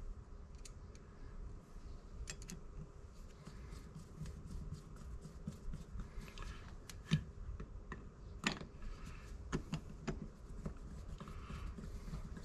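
Faint, scattered small metallic clicks and taps of a Torx driver and small screws being worked at a carburetor's throttle plate, with a couple of sharper clicks about seven and eight and a half seconds in.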